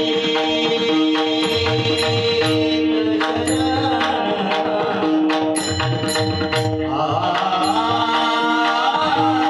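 Devotional Warkari bhajan music: drum beats and regular percussion strikes over a steady held drone, with a man's voice starting to sing about seven seconds in.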